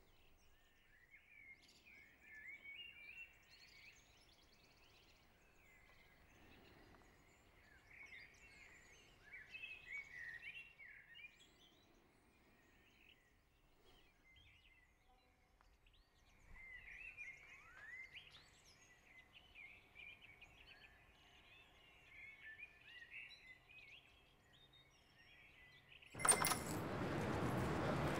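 Faint songbirds chirping and twittering in short scattered phrases. About two seconds before the end a sudden loud, noisy clatter cuts in.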